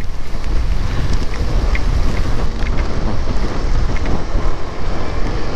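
Strong wind buffeting the microphone of a motorcycle rider riding through a storm: a dense, steady low rumble with rain hiss mixed in.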